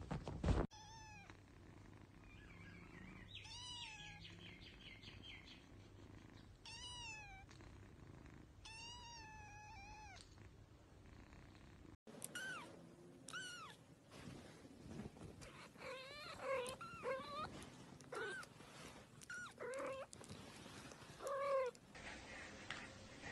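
Kitten mewing again and again in thin, high calls that bend up and down in pitch, more often in the second half. A brief thump at the very start.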